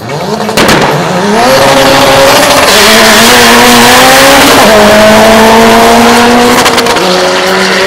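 Car accelerating hard from the drag-strip start line at full throttle. The engine note climbs, then drops back and climbs again at each upshift, about four times.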